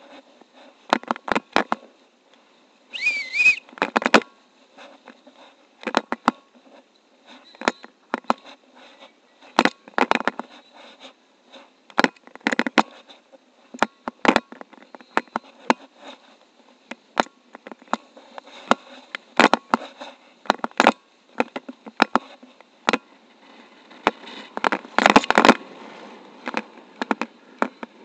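Airflow in flight buffeting a paraglider pilot's camera microphone, heard as irregular crackles and rustles that come and go unevenly. A brief warbling whistle sounds about three seconds in.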